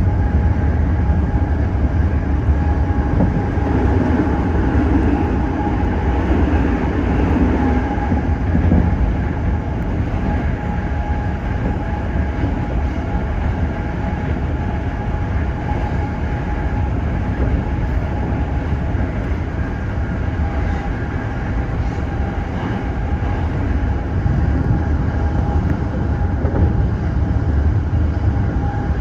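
Toyo Rapid Railway 2000 series electric train running between stations, heard from inside the leading car: a steady rumble of wheels on rail with a few steady humming tones over it.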